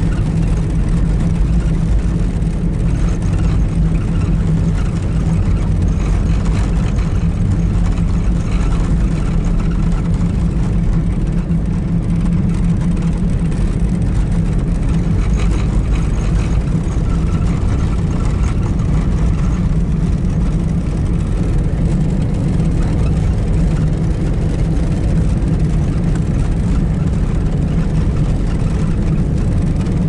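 Car driving on a snow-covered road, heard from inside the cabin: a steady low rumble of engine and road noise.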